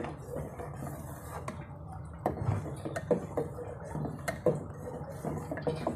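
Steel spoon stirring thick tamarind and plum syrup in a steel pot, with irregular clinks and scrapes against the pot every second or so.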